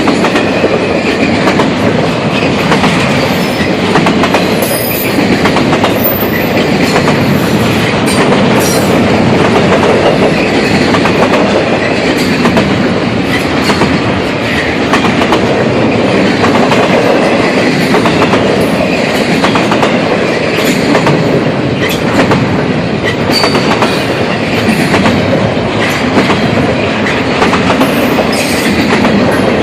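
CSX intermodal freight train rolling past, its cars' wheels clattering steadily over the rail joints, with brief high wheel squeals now and then.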